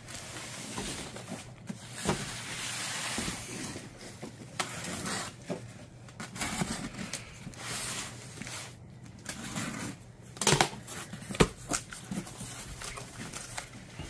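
Cardboard shipping cartons being handled and opened: scraping and rustling of cardboard, with a couple of sharp knocks near the end.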